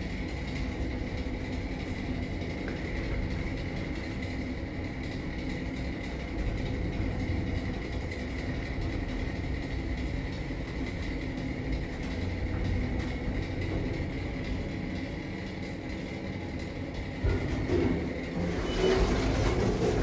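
Passenger elevator car travelling upward: a steady low rumble with a constant high whine. Near the end the car stops and its doors open, with louder clunks and rattles.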